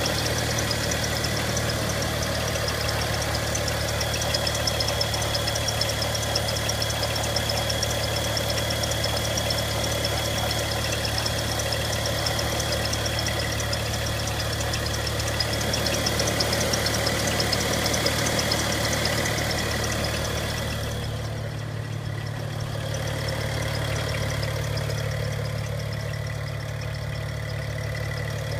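BMW 335i's N55 turbocharged straight-six idling, with a fast, steady ticking from the engine bay. The ticking grows fainter about two-thirds of the way through.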